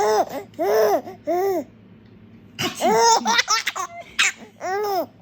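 Four-month-old baby laughing in short, high-pitched chuckles, a few spaced ones at first, then a quick run of laughs about halfway through and one more near the end.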